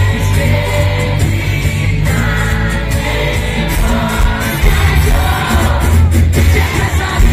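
Live pop band music played loud through a PA system, with a male lead singer singing over a steady bass and drum beat.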